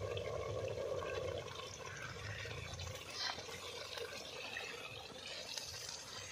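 Thin stream of white liquid poured from a plastic packet into an aluminium pot of hot, steaming egg curry gravy: a steady pouring and trickling.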